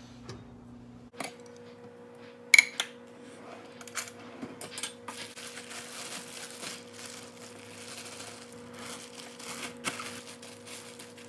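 Food packages and kitchen items being handled on a counter: a sharp click about two and a half seconds in, scattered light knocks, then a long stretch of rustling.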